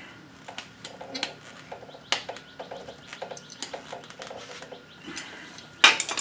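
Small metallic clicks and scrapes of a flat screwdriver prying at a C-clip on a drum-brake shoe lever held in vice grips, with a sharper click about two seconds in and a loud metal clack near the end.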